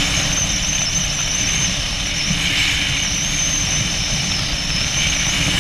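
Wind rushing over an action camera's microphone during a parachute descent under an open canopy: a steady low buffeting rumble with a hiss above it and a faint wavering high whistle.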